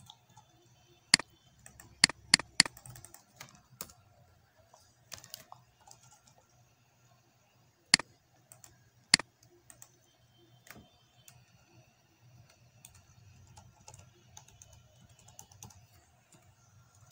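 Typing on a computer keyboard: irregular runs of light keystrokes with a few sharper, louder clicks, a quick cluster of them one to three seconds in and two more around eight and nine seconds in. A faint low hum runs underneath.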